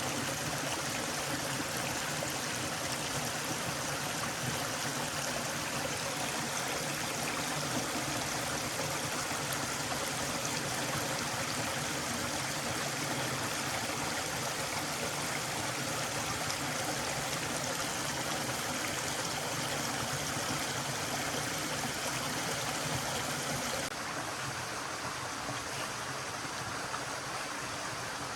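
A forest stream flowing, a steady even rush of water. About four seconds before the end it turns a little softer and duller.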